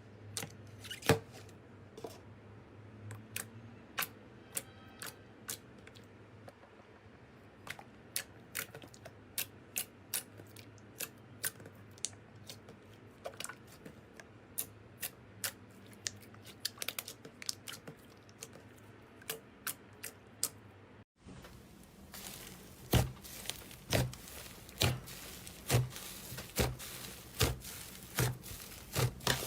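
Slime being pressed and squeezed by hand, giving a run of crisp clicks and pops over a soft squelching background. After a break about two-thirds of the way through, the pops come louder and at a steady pace of roughly one a second.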